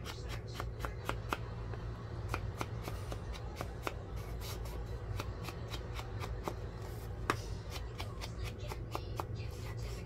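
Paper being handled at a craft table: a run of quick, light, irregular taps and rustles of paper and card, over a steady low hum.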